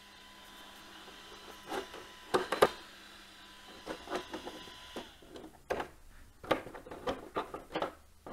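Hands handling the plastic body of an RC truggy: irregular knocks, clicks and rubbing, the loudest a pair of knocks about two and a half seconds in and a quick run of them in the last three seconds. A faint steady hum stops about five seconds in.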